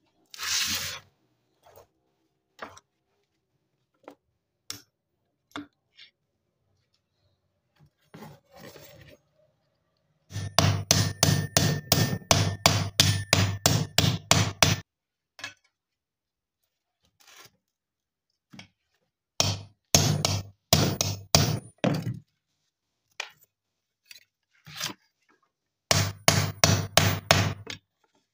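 Hammer blows on the sickle's metal collar around its wooden handle, struck against a steel anvil block, with a faint metallic ring. They come in three quick runs of about five blows a second: about ten seconds in for four seconds, again for two seconds near the middle, and near the end, after a stretch of light handling clicks.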